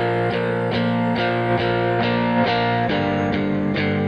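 Background music: a steady run of evenly spaced notes, a little over two a second, with the harmony shifting about three seconds in.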